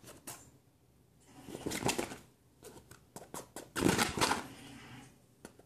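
Fingernails scratching and rubbing the nylon fabric seat of a camp chair, in two louder rasping bursts about a second and a half and four seconds in, with short scratchy clicks in between.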